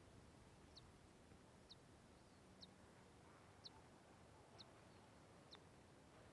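Faint bird calling: a short, high chirp repeated about once a second, over a low, steady background hiss.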